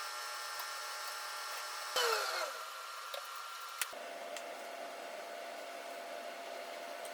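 Electric motor of a power tool running with a steady whine. About two seconds in, a falling glide sweeps down. Just before four seconds a click is heard, after which a lower, steady hum carries on.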